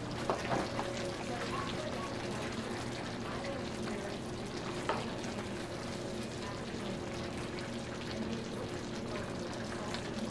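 Butter-and-sugar sauce simmering with a steady sizzle and bubble around sweet potato slices in a wide pan. A metal spoon clicks against the pan a few times shortly after the start and once about halfway.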